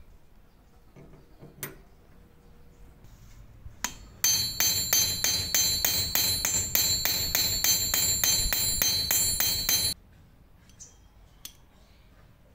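Small hammer striking the pivot pin at the end of a car jack's steel arm on a steel block, about three to four quick, ringing metal blows a second for some six seconds, starting about four seconds in: the pin head being peened over like a rivet. A few light clicks of the parts being handled before and after.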